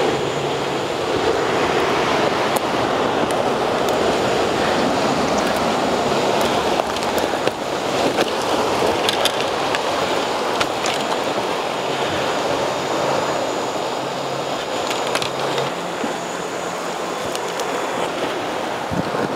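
Ocean surf rushing steadily, a continuous wash of noise, with a few sharp crunches of footsteps on loose rock and gravel.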